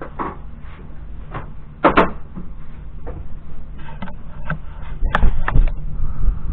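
Sharp wooden knocks and cracks, several in a row, loudest about two seconds in and again just after five seconds: fire-damaged interior woodwork and veneer being pried and broken off by hand.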